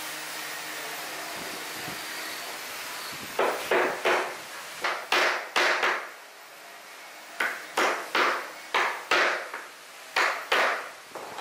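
Claw hammer striking wooden frame pieces to knock them together: sharp wooden blows in short runs of two to five, about four runs in all, beginning about three seconds in.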